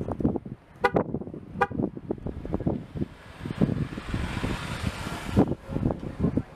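Two short car-horn toots a little under a second apart, about a second in, over irregular footsteps. From about three seconds in a rushing hiss builds and then stops suddenly.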